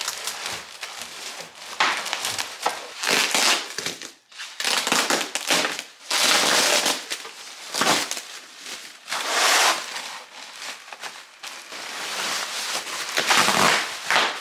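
Plastic bubble wrap rustling and crinkling as it is handled and pulled off a window, in repeated loud bursts of a second or so with short lulls between them.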